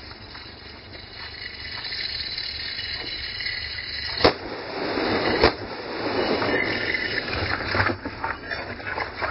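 Two handgun shots a little over a second apart, sharp and loud, over a steady hiss, with a few fainter clicks afterwards.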